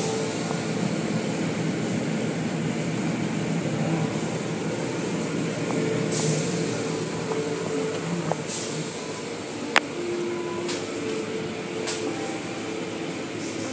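Automatic tunnel car wash heard from inside the car: a steady wash of water and machinery against the body and glass, with hissing bursts of spray about six, eight and a half and eleven seconds in, and a single sharp knock near ten seconds.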